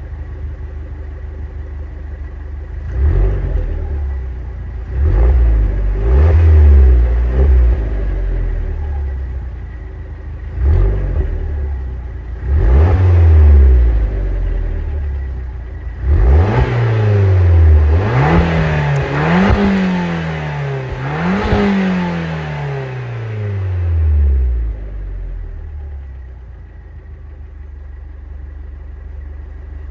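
Alfa Romeo MiTo 1.4 T-Jet turbocharged four-cylinder engine on its stock exhaust, idling, then blipped several times and revved up and down in three quick climbs, settling back to idle near the end.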